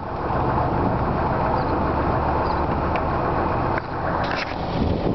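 A 2002 Subaru Forester's 2.5-litre flat-four engine idling steadily, with a couple of short knocks about four seconds in.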